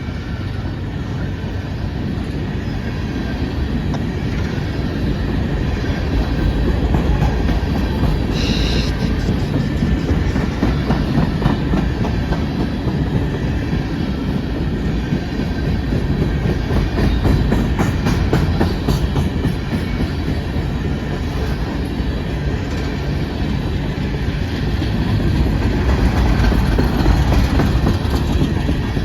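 Empty coal train rolling past: a steady rumble with the clickety-clack of wheels over the rails, and a brief high-pitched wheel squeal about eight and a half seconds in.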